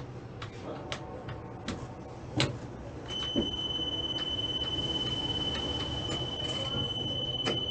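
Inside a Tatra T3 tram's driver's cab: scattered irregular clicks and knocks. From about three seconds in, a steady high-pitched tone joins them and holds until the end.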